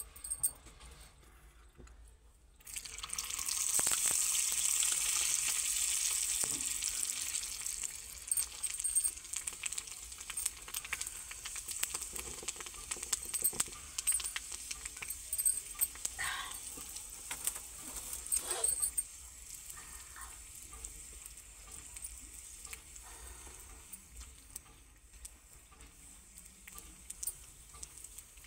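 Tempering (tadka) in hot oil: a sudden loud sizzle starts a couple of seconds in and holds for about five seconds. It then settles into a quieter sizzle with scattered crackles and pops.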